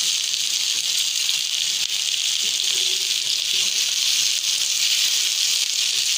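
Chopped onion, garlic, ginger and tomato sizzling in a little hot ghee in a pan as they are stirred, a steady hiss: the vegetables searing just after going into the hot fat.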